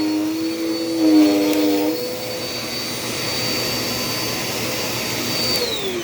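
Dirt Devil Power Max vacuum cleaner running with a steady high motor whine, and a lower hum that wavers and drops out about two seconds in. Near the end the vacuum is switched off and its motor winds down, the whine falling in pitch.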